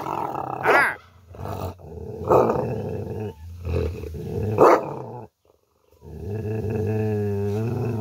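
Rottweiler growling low in several bouts with short breaks between, then one long unbroken growl near the end. It is guarding the dead snake between its paws as a stick is poked at it.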